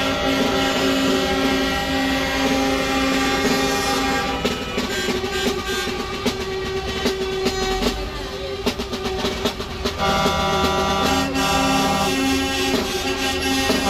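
Several truck horns sounding together in long, steady blasts. They break off about four seconds in and start again about ten seconds in.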